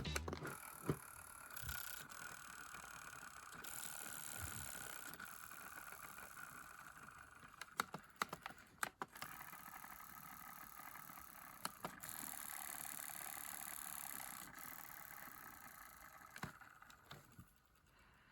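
Faint handling of a small cassette Walkman: a steady quiet whir with a few sharp small clicks, a cluster about halfway through and single ones later.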